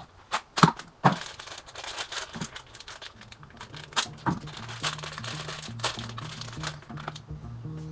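Background music with a low bass line that steps from note to note, coming in about halfway through. Before it come several sharp clicks and some rustling, like parts or paper being handled.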